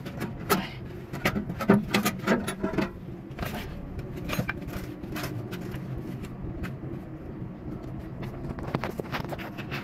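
Irregular metallic clinks and knocks of hand tools working on corroded truck battery terminals and cables, busiest in the first few seconds, over a steady low hum.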